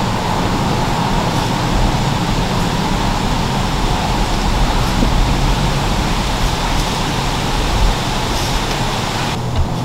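Steady, even rushing noise with a low hum, like distant road traffic.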